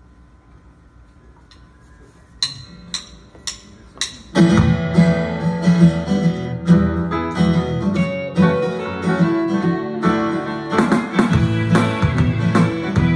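Four sharp count-in clicks about half a second apart, then a live band comes in together with strummed guitar out front.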